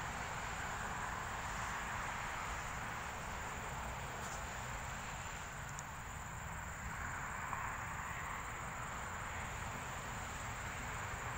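Steady outdoor background: a continuous broad hiss with a low rumble, and a thin, high insect whine running throughout.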